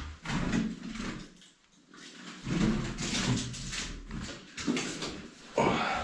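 A man's low grunts and muttered, wordless vocal noises, in two stretches, as he strains to catch a trapped bird.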